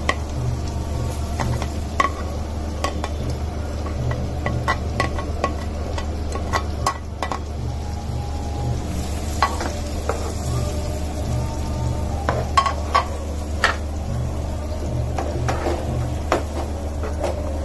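Chopped onions frying in hot oil and butter in a nonstick pan, sizzling steadily, while a plastic spatula stirs them with frequent sharp scrapes and taps against the pan. A low steady hum runs underneath.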